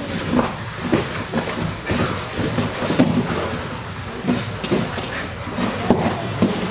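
Thuds and scuffs of two jiu-jitsu grapplers hitting and scrambling on foam mats after a takedown, irregular knocks of bodies and gis against the mat, the heaviest about three and six seconds in.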